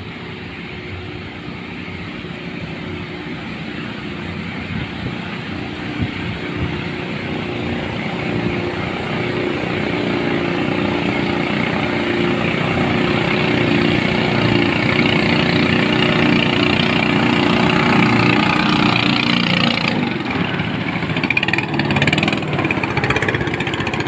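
A racing boat's Ryu 18 hp engine running hard, a steady drone that grows louder as the boat approaches, changing in tone about 20 seconds in as it comes close.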